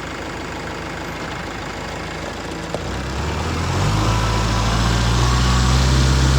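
Tractor engine running at idle, then revving up about three seconds in and holding at a higher, louder speed.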